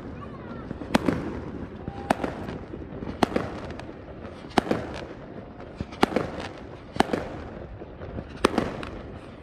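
Fireworks going off: a string of sharp bangs about once a second as shells burst overhead, each trailing off briefly, with crackling between.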